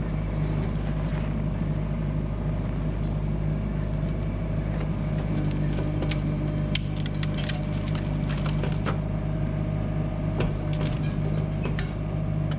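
Excavator diesel engine running steadily, with scattered light clicks and knocks in the second half.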